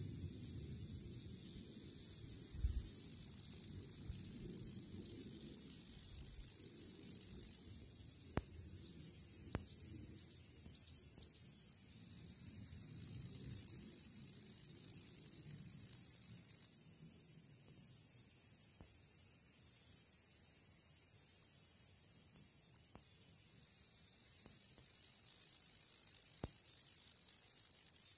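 Cicadas and other insects shrilling: a high buzz that swells in three long phrases, each opening with a rising whine, the middle one cutting off suddenly, over a steadier insect chorus.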